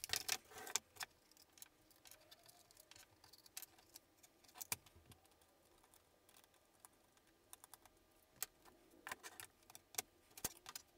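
Faint, scattered clicks and taps as a Nixie clock's circuit board, acrylic panel and metal bolts are handled and set down, with a cluster of clicks at the start and another near the end.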